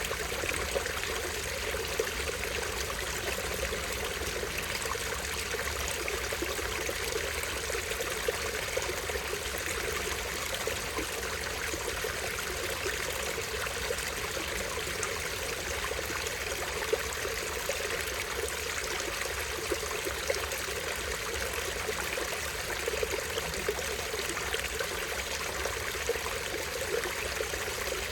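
A small stream running and falling in a steady, even rush of water, with small splashes now and then.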